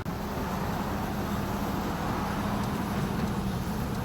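Steady background noise with a constant low hum and no distinct events.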